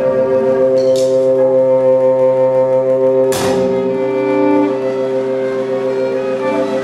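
Symphony orchestra playing a long held chord of sustained notes, with a sharp percussion hit about three seconds in and a smaller one about a second in.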